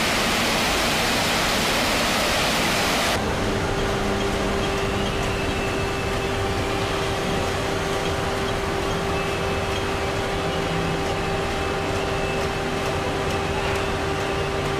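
Machinery of a Tamglass ProConvection glass tempering line: a loud rush of blown air cuts off abruptly about three seconds in. A steady hum with a constant mid-pitched tone follows.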